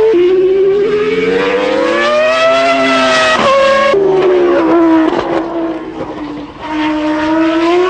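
Williams FW19's 3.0-litre Renault V10 Formula 1 engine at high revs. The pitch climbs for about three seconds, drops sharply twice as it shifts up, then falls away. After a brief dip in loudness the revs rise again near the end.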